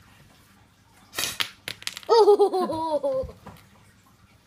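A short puff of breath through a toy blowgun, a small tap from the dart striking the window glass, then a young child's giggling laugh: a quick run of 'ha-ha' sounds falling in pitch, the loudest part.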